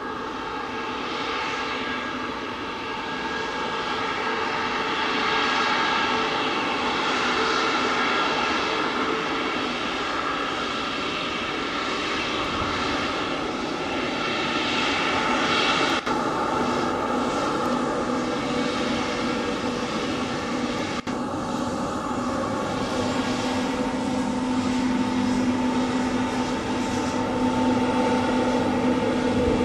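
Boeing 737 MAX 8's CFM LEAP-1B turbofan engines running at taxi power: a steady jet whine with several held tones. A low hum in it grows stronger in the second half.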